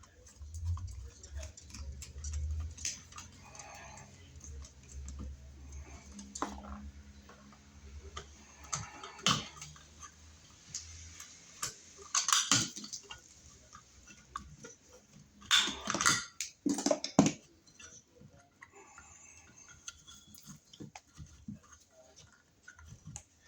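Scattered small metallic clicks, taps and scrapes of hand tools working wires and screws at a wall outlet box, with a few louder clusters of rattling near the middle and about two-thirds through. A low hum sits under the first half.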